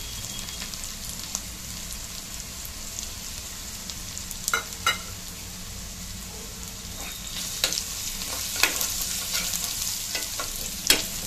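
Mustard seeds, cumin, garlic and coriander seeds sizzling steadily in hot oil in a kadhai, with a couple of sharp clicks about halfway. In the second half a steel spoon stirs the mixture, the sizzle gets louder and more clicks come through.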